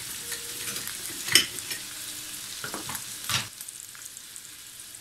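Chunks of sucuk sausage sizzling in hot oil in a stainless steel frying pan. There are two sharp knocks, about one and a half and three seconds in, and the sizzle eases a little after the second.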